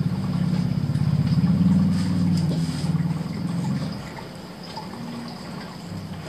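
A vehicle engine running, a low pulsing rumble that is loud for about the first four seconds and then fades away.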